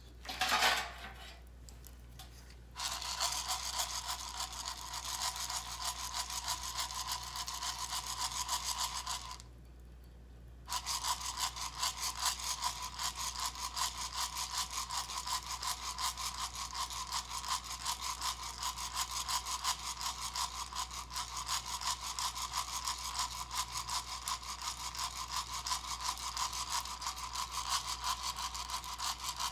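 Coffee beans being shaken in a handheld Irijozu roasting pan, rattling and scraping against the metal in a fast, steady stream of small clicks. The shaking stops for about a second and a half near the ten-second mark, then resumes. A brief sweeping sound comes at the very start.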